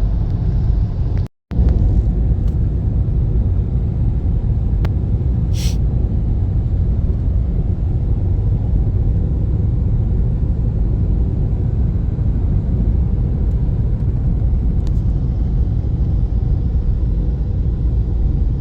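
Steady low rumble that cuts out briefly about a second in, then carries on unchanged.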